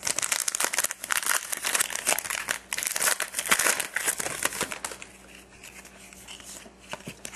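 Foil trading-card pack wrapper crinkling and tearing as it is opened by hand, for about five seconds, then much quieter handling of the cards.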